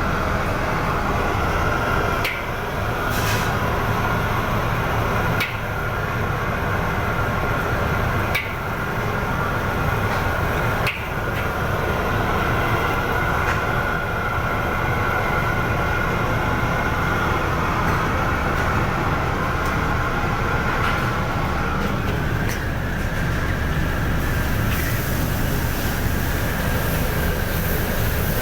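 Steady loud roar of a commercial kitchen's wok burner and extractor, with a few sharp metallic clacks a couple of seconds apart during the stir-fry.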